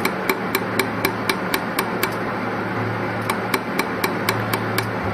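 Desktop YAG laser welding machine firing pulse after pulse while welding metal tubes: a sharp click about four times a second, over a steady hum and hiss.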